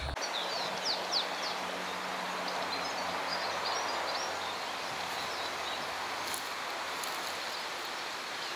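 Riverside ambience: a steady rushing background noise with birds chirping, short high calls bunched in the first second and a half and then scattered.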